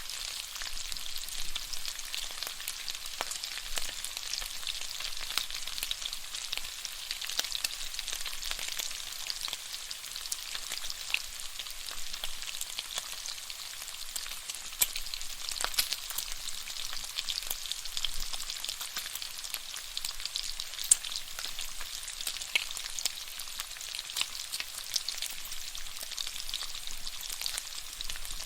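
Bacon sizzling and frying in a pan: a steady high hiss with a constant scatter of small crackles and pops from the spitting fat.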